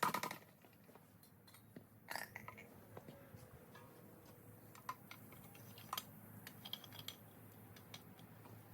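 Faint scattered clicks and light clinks, a handful of separate taps spread across the stretch, the loudest right at the start and about two seconds in, over a low background hum.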